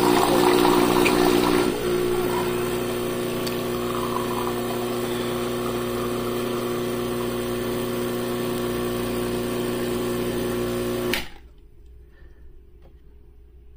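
Gaggia Classic Pro espresso machine's vibratory pump humming steadily as it pushes water through the coffee puck, easing slightly about two seconds in and then cutting off suddenly about eleven seconds in as the shot ends.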